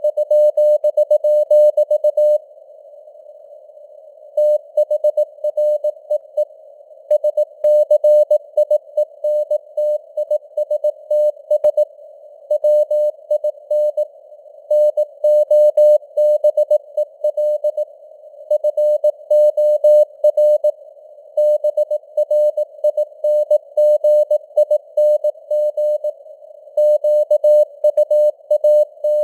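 Morse code (CW) sent at 18 words per minute: a single steady beeping tone keyed on and off in dots and dashes, with longer gaps between words, over a narrow band of simulated radio hiss. The signal strength rises and falls, simulating QSB fading.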